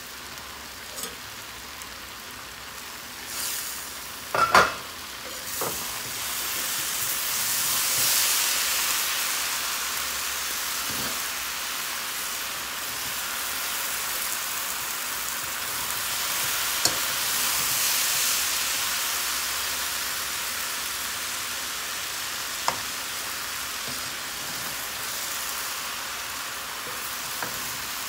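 Cabbage and potato sabzi sizzling steadily in a frying pan as it is stirred and turned with a metal spoon, with small ticks of the spoon against the pan. A sharp clank comes about four seconds in.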